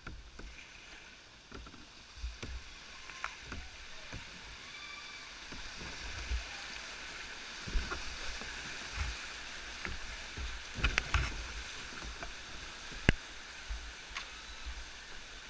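Whitewater rushing around a sit-on-top kayak running a small rapid, getting louder about halfway through, with paddle splashes and scattered knocks and thumps against the plastic hull; one sharp knock near the end is the loudest.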